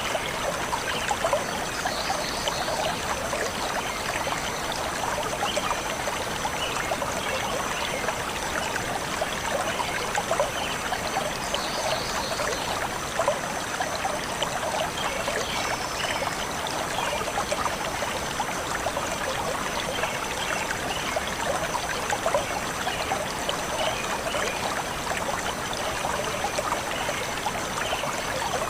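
Forest stream flowing and trickling steadily.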